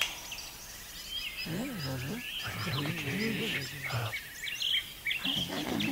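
Faint outdoor background of distant voices talking, with short bird chirps scattered through it.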